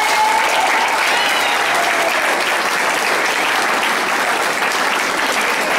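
Audience of seated students clapping: steady, sustained applause.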